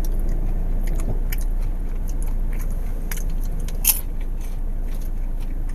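Chewing and crunching of caramel-and-cheese coated popcorn close to the microphone, with scattered crisp crunches, the sharpest about four seconds in. A steady low hum of the car cabin runs underneath.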